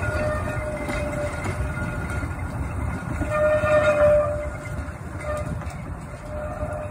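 1934 Blackpool Boat Tram streetcar rolling slowly over the rails with a low rumble, its wheels squealing on the curved track. The squeal comes and goes, loudest about three to four seconds in, and it fades as the tram slows to a stop.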